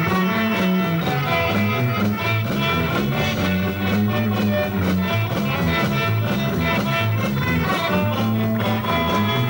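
Live band music: an acoustic guitar strummed over a stepping bass line and a steady drum beat.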